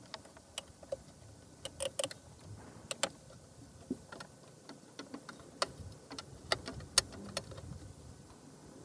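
Irregular clicks and taps of hands handling a small plastic LCD screen and its cable connectors, the loudest click about seven seconds in.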